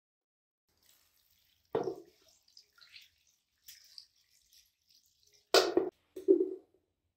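Water splashing and dripping in a container: three louder splashes, one about two seconds in and two close together near the end, with small trickling sounds between.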